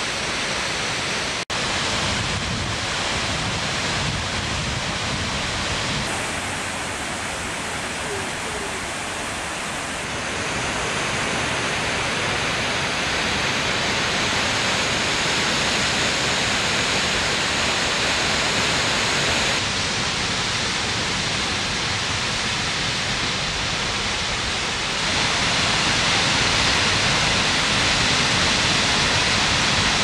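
Ulaan Tsutgalan waterfall, about 24 m high, pouring into its plunge pool: a steady rush of falling water, with a brief dropout about a second and a half in and somewhat louder near the end.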